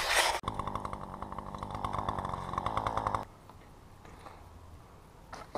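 Two-stroke chainsaw running steadily for about three seconds, then stopping abruptly.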